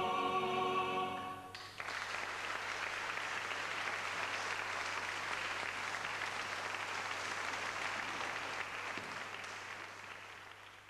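The final held chord of the cantor and male choir stops about a second and a half in, and the audience breaks into applause, which fades out near the end.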